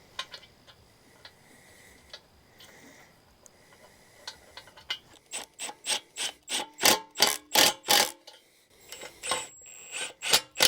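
A few faint clicks, then from about five seconds in a regular series of sharp metal-on-metal strikes, about three a second, each with a brief ringing tone: steel tools working the excavator bucket's pins and bolts into place.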